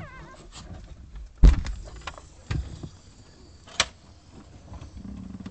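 A newborn puppy squealing briefly with a thin wavering cry, then a few knocks and thumps, the loudest about one and a half seconds in, another about a second later and a sharp click near the end.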